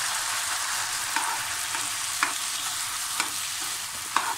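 Cooked palada (rice ada) sizzling as it fries in hot ghee in a non-stick kadai, with a steel spoon scraping and tapping against the pan about once a second.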